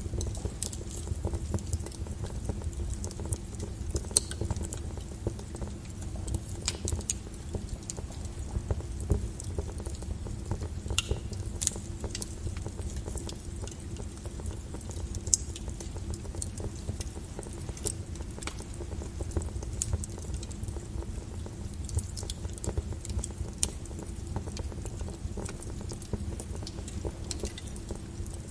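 Small wood fire in a fireplace crackling: irregular sharp snaps and pops, a few a second, over a low steady rumble.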